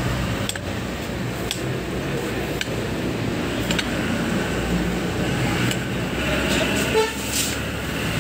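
Steel knife slicing a guava on a cutting board, the blade knocking on the board about once a second, over steady street traffic with a vehicle horn sounding near the end.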